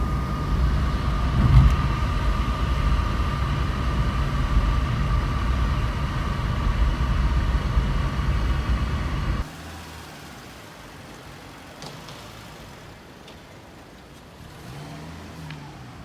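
Loud engine noise, a deep rumble with a steady whine, cutting off abruptly about nine seconds in and leaving a much quieter steady hum.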